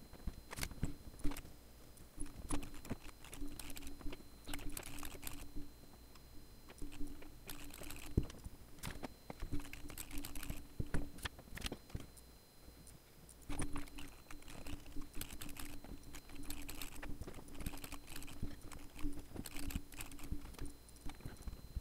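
Typing on a computer keyboard: irregular clusters of keystrokes with short pauses between them.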